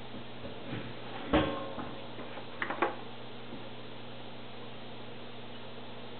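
A single solid knock about a second in, then two or three sharp clicks a second later, as aquarium canister filter parts are handled at a sink, over a steady low hum.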